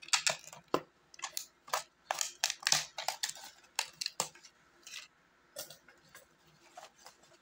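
Scissors cutting through a thin plastic bottle, the plastic crackling and snapping with each cut. The snips come thick and fast for the first four seconds, then thin out to a few scattered crinkles.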